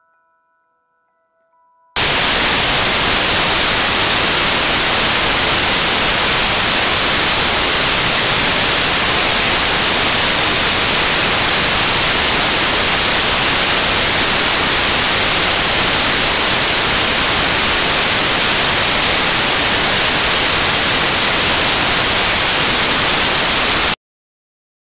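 Loud, steady white-noise static from a glitched, corrupted audio track. It starts suddenly about two seconds in and cuts off abruptly near the end.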